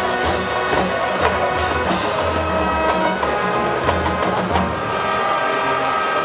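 High school marching band playing held chords over drum hits.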